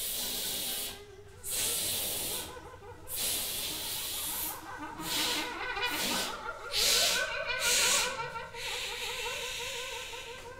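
Breath noise blown through a trumpet and a French horn, played as air with little or no tone: about eight hissing bursts of a second or so each. From about halfway, faint wavering pitches sound beneath the air.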